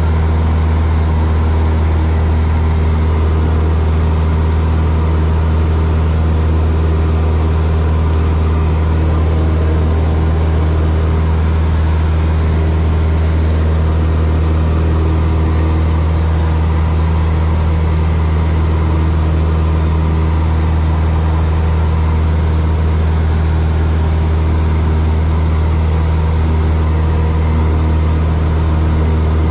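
Light single-engine propeller plane's piston engine and propeller running steadily in flight, a constant low hum heard inside the cockpit.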